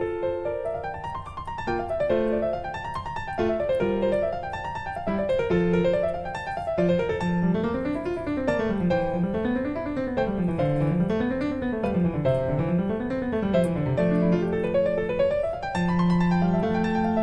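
Background music: piano playing quick rising and falling arpeggios over a steady bass line.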